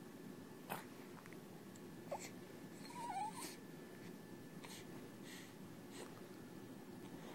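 Repeated short, sharp hiccups, about six of them, roughly one every second and a half.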